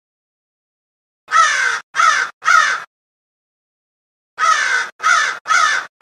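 Crow cawing: three caws in quick succession, a pause of about a second and a half, then three more, each caw falling in pitch.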